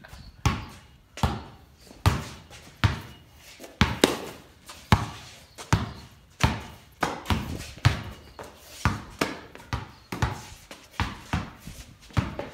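A basketball dribbled steadily, about one bounce every three quarters of a second, each bounce echoing off the corrugated iron walls of a shed.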